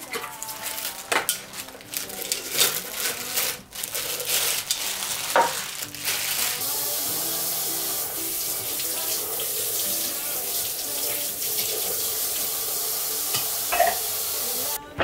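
Plastic packaging crinkling and parts knocking about during unwrapping for the first few seconds, then a kitchen tap running steadily to wash the new stick blender's parts; the water cuts off abruptly near the end.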